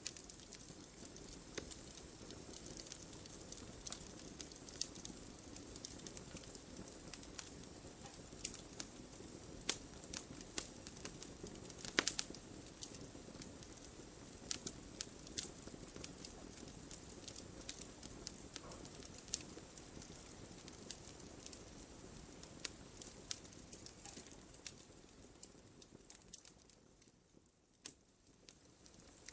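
Wood fire in a fireplace crackling, with irregular sharp pops over a low steady hiss; one pop about twelve seconds in stands out as the loudest. Near the end the crackling briefly thins out and goes quieter before picking up again.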